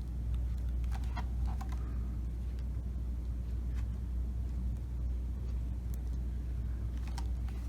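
Steady low background hum, with a few faint clicks near the start and again near the end.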